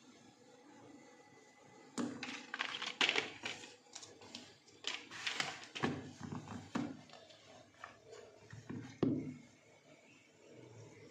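Unboxing handling noise: short rustles, clicks and light knocks as a coiled USB charging cable and the cardboard packaging are handled on a tabletop, with a sharper knock about two seconds in and the loudest about nine seconds in.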